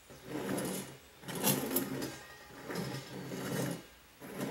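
Stainless steel folding camp stoves being turned and shifted on a tabletop: sheet metal scraping and rubbing, in about three separate stretches.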